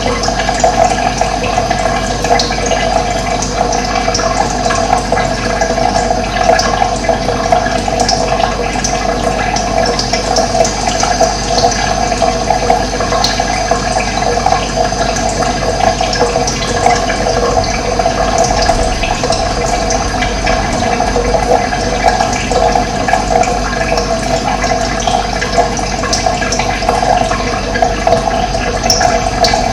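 Running water flowing steadily, an unbroken rush that does not change.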